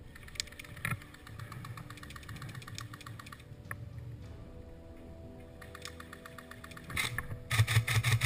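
Airsoft rifles firing rapid full-auto bursts. Fainter bursts come through the first few seconds and again shortly before the end, then a loud, close burst starts near the end from the rifle at the camera.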